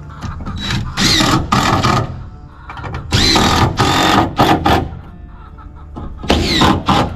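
A cordless drill drives screws into wooden deck boards in three runs of about one to two seconds each, the middle one the longest.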